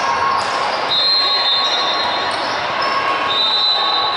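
Basketball game in a gym: a basketball bouncing on the court over the steady hubbub of players and spectators. Two high squeaks come about a second in and again near the end.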